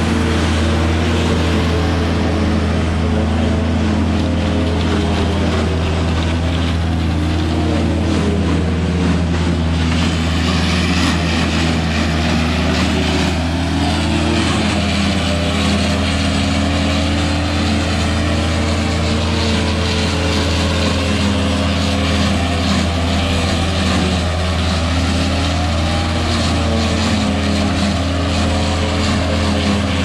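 Engine of a Lebanon silage processor running under load as it chops corn and blows silage through its spout into a wagon: a steady loud drone whose pitch wavers slightly, with a rushing hiss of the chopper and blower over it.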